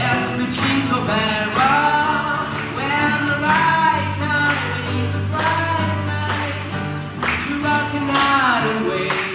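A song playing: a voice singing a melody over sustained bass notes.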